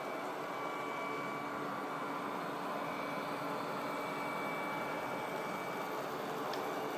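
Vacuum cleaner motor running steadily: a constant whine over an even rushing of air.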